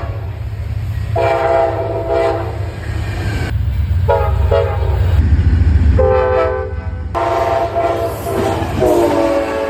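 Amtrak locomotive air horns playing a horn show: a string of short and long multi-note chord blasts, the chord shifting from one blast to the next, over the heavy low rumble of a passing train.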